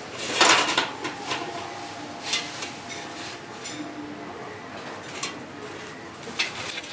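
Square steel tubes, 1-inch and drilled, clanking as they are set down and shifted on a steel workbench frame. The loudest clatter comes about half a second in, with a brief metallic ring after it, followed by scattered lighter clinks.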